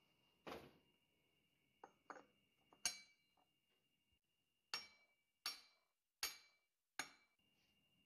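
Steel parts of a Ford Model T transmission clinking together as they are fitted by hand. A few light knocks come first, the loudest clink about three seconds in, then four sharp metallic clinks roughly three-quarters of a second apart, each ringing briefly.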